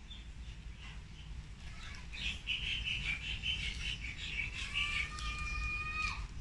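A bird calling: a quick run of short high chirps for a couple of seconds, ending in one longer steady whistled note that drops away near the end.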